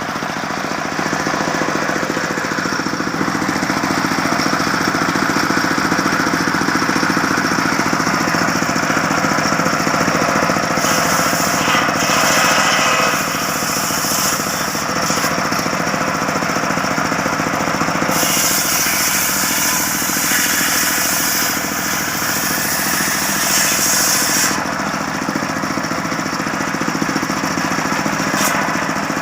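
Circular sawmill running steadily while sawing a long medang log. The blade's high hiss of cutting comes in about a third of the way through, runs with short breaks for over ten seconds, and starts again near the end over the steady hum of the drive.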